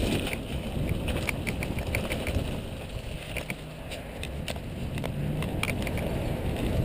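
Mountain bike rolling fast on a paved path: tyre and wind rumble with irregular sharp clicks and rattles from the bike.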